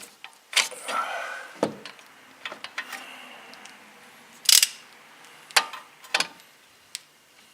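Scattered metallic clicks and knocks of a torque wrench with a socket extension being fitted and pulled on a brake caliper bolt, about seven separate sharp clicks, the loudest about four and a half seconds in.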